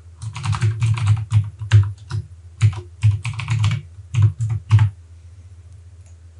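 Typing on a computer keyboard: a quick run of keystrokes with short pauses, stopping about five seconds in.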